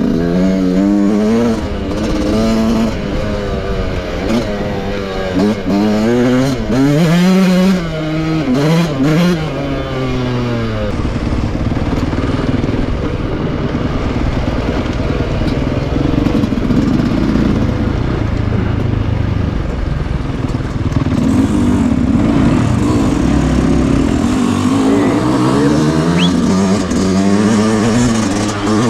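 Yamaha YZ125 two-stroke motocross engine under a rider, revving up and down through the gears for the first ten seconds or so, then holding a steadier, rougher note before the revs climb again near the end.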